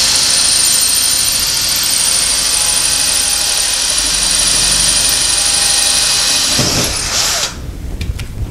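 Cordless drill with a 3/16-inch bit boring through drywall to enlarge a pilot hole for a molly anchor. It runs steadily with a high whine, then stops about seven seconds in, followed by a few light clicks.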